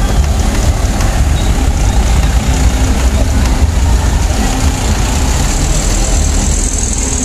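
Diesel engines of large police buses running as they drive slowly past at close range, one after another, with a steady low rumble. A high hiss builds near the end.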